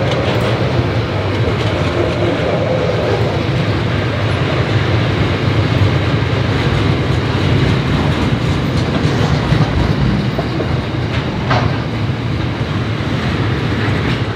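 Container wagons of a long freight train rolling past: a steady, loud rumble of wheels on the rails.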